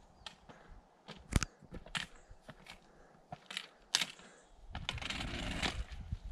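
Footsteps crunching and clicking on a stony mountain trail during a steep climb, irregular sharp steps on rock and gravel. About five seconds in there is a second or so of rushing noise.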